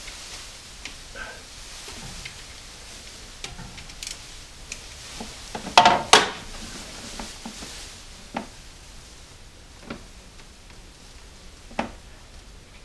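Hand tools clicking and clinking against metal engine parts as a wrench is worked in the engine bay, with a louder double clatter about six seconds in.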